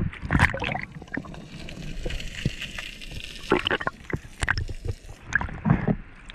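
Sea water sloshing and splashing against a camera held at the surface. Through the middle it dips under with a bubbling hiss, and there are sharp splashes at the start and near the end.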